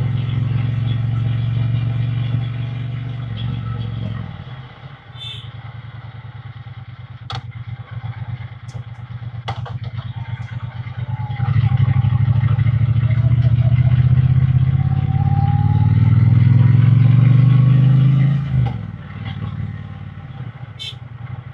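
Triumph Bonneville T120 parallel-twin engine and exhaust heard from the saddle, pulling under throttle, then dropping back off the throttle at about four seconds. From about eleven seconds it accelerates, its pitch rising steadily for several seconds, then eases off near the end.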